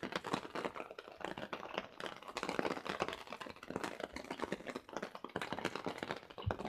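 Rain pattering: a steady run of many small, irregular taps as drops hit the awning and wet ground close by.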